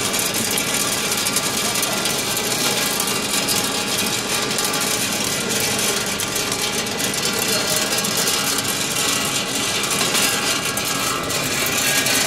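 BL30 colour sorting machine running roasted peanuts: the nuts rattle down its steel chute with dense rapid clicking over a steady hiss and machine hum.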